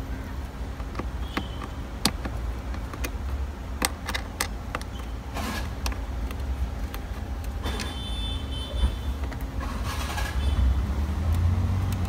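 Scattered light clicks and brief scrapes of a hand screwdriver backing a screw out of a car's plastic dashboard trim, and of the loose screw being handled, over a steady low rumble.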